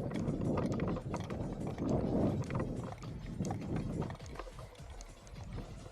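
Quick footsteps of airsoft players moving off at the start of a game, with clicking and rattling of their gear.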